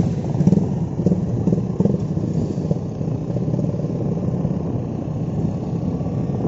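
Motorcycle engine running steadily while riding along the road, with a dense low drone and rushing noise over the microphone.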